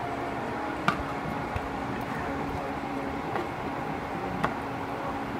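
Boiled potatoes tipped from a glass bowl into a pan of pork stew and stirred in with a spatula, with two sharp knocks, about a second in and again past four seconds, over a steady hum.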